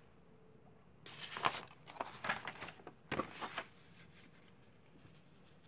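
A sheet of paper rustling and crinkling as it is handled and laid flat on a table, in a few irregular bursts from about one second in until shortly before four seconds.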